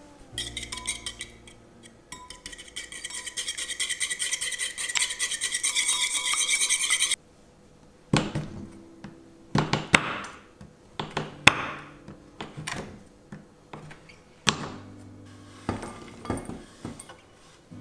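Kitchen utensil work: a utensil beating rapidly and evenly in a bowl for about five seconds, growing louder and stopping suddenly, then scattered clinks and knocks of dishes and cutlery.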